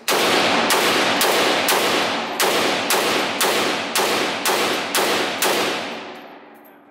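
A short-barrelled AK-pattern pistol firing a steady string of about eleven semi-automatic shots, about two a second, each shot echoing off the walls of an indoor range.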